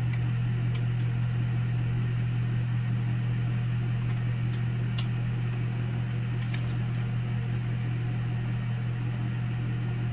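A steady low hum, with a few faint metallic clicks from a line wrench working on a power steering hose fitting.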